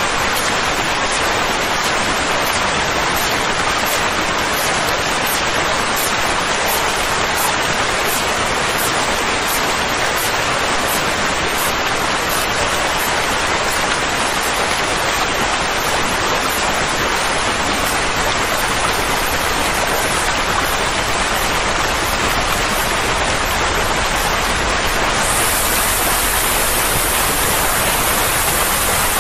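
Steady, even rushing hiss of a continuous soothing-noise track for settling a colicky baby, with no beats or tones and no change in level.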